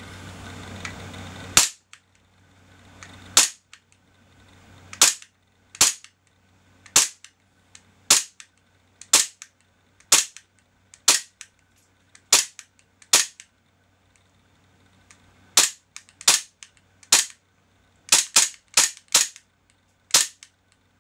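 WE Glock 34 gas-blowback airsoft pistol firing 0.2 g BBs on WE gas, about twenty sharp shots with the slide cycling on each. They come roughly one a second at first, then after a short pause in quicker strings near the end.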